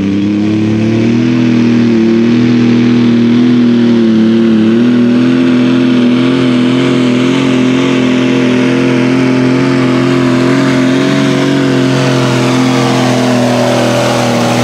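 John Deere light limited super stock pulling tractor's engine running flat out under load as it pulls the sled down the track. Its pitch climbs about a second in, then holds high and steady with slight wavering.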